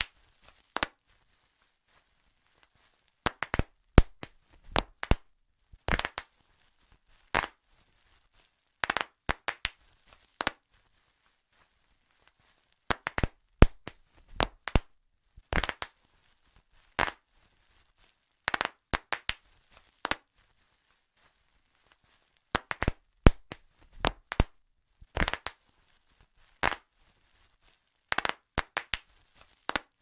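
Bubble wrap being popped: sharp pops, some single and some in quick runs of two to four, at irregular intervals with pauses of up to two seconds between them.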